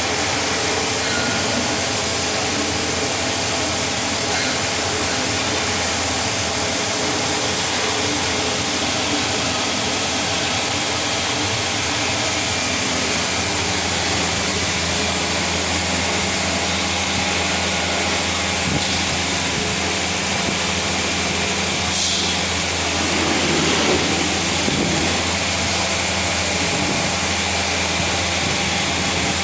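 A CNC special-purpose machining machine running steadily: a constant mechanical hum and hiss, with a brief shift in the cutting sound about three-quarters of the way through.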